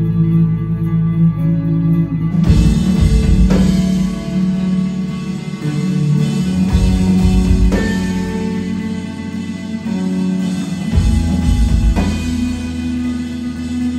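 Instrumental post-rock band playing live, recorded from the audience: held guitar and bass tones, then about two seconds in the drum kit and the full band come in loud, with heavy drum hits every few seconds.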